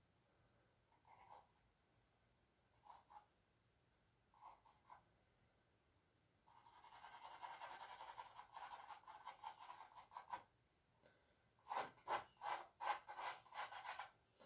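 Charcoal stick scratching and rubbing on canvas. A few short single strokes, then a run of quick back-and-forth hatching strokes from about six to ten seconds in, and a burst of louder separate strokes near the end.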